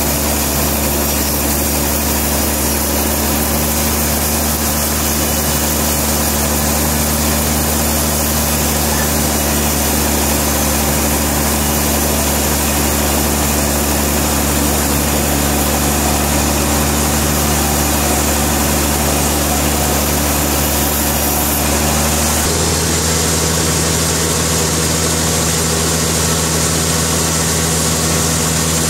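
Sawmill engine running steadily with an even, droning note. About 22 seconds in, its pitch and tone change abruptly.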